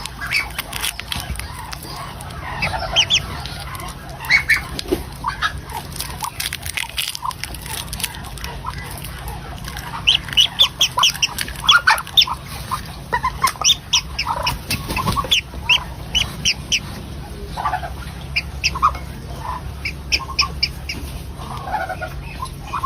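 Ducklings peeping in runs of short, high chirps, mixed with scattered lower calls from birds, over a steady low hum.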